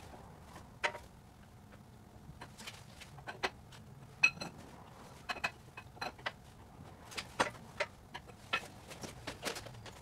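Irregular metallic clinks and knocks as a 4T65E-HD automatic transmission hanging from an engine hoist is worked into line with its mounts on an engine cradle. The sharpest knocks come about four and seven seconds in.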